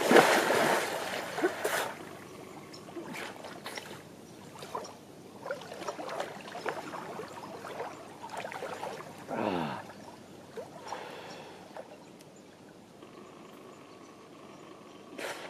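A person plunging into a lake with a loud splash, then swimming with soft, irregular splashes and lapping water. About halfway through there is a short sound that falls in pitch.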